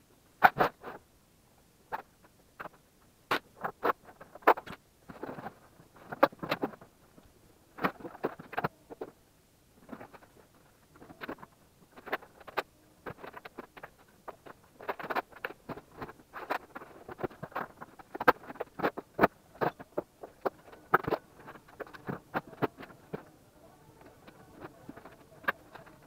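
Sped-up timelapse audio of someone working in a room: a fast, irregular jumble of short clicks, knocks and scrapes from handling cables, tools and equipment.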